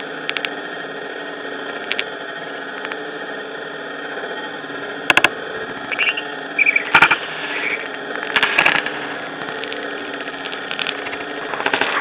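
Steady background hiss with scattered sharp clicks and a few short high chirps.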